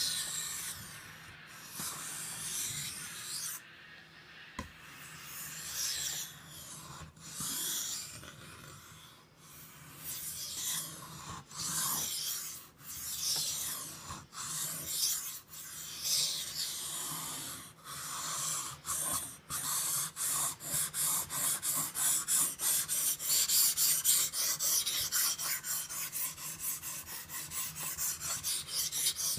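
Steel knife blade rubbed across a wet King Japanese water stone, each stroke a hiss. The strokes are slow and spaced at first, then quicken to a fast run of short, even strokes from about twenty seconds in.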